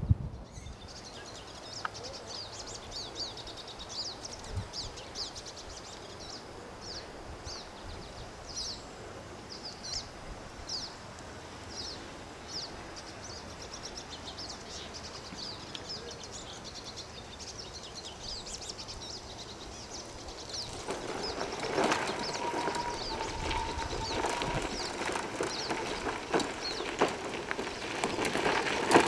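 Small birds chirping, a quick run of short high notes again and again. In the last third the louder whine of a Permobil F3 power wheelchair's electric drive motors comes in, with its wheels on a gravel path.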